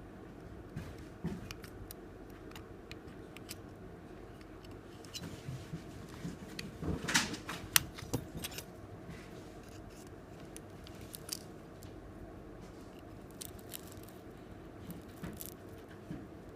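Small hand tools clicking, tapping and scraping against a smartphone's parts during disassembly, with one sharp click about halfway through, over a steady low hum.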